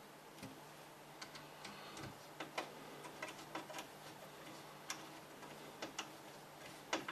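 Scattered light clicks and taps of screws and a tempered-glass PC side panel being handled while the screws are fitted, the screws struggling to catch their threads.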